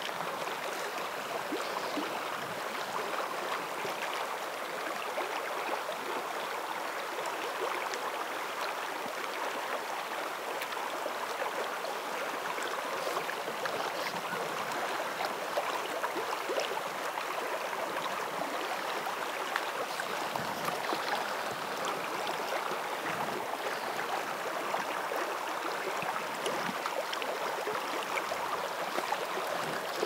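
Steady rush of a shallow spring creek's water flowing past the bank.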